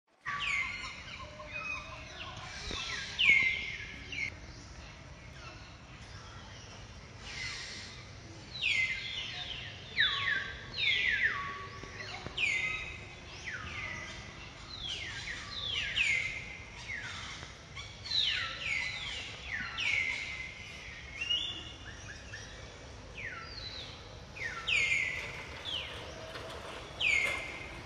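Birds calling over and over: many short chirps that each sweep downward in pitch, some overlapping one another, over a faint steady outdoor background.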